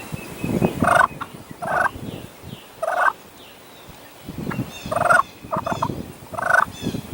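Wild turkey gobbling in a string of short, loud bursts, with low gusts of wind rumbling on the microphone between them.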